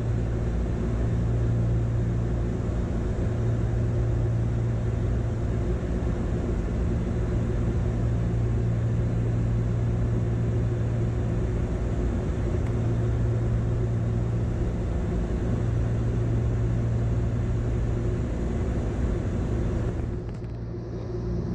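Steady in-cabin drone of a Gulfstream IV-SP jet in cruise flight: a low, even hum with a few constant tones over a rush of airflow and engine noise. It falls off a little near the end.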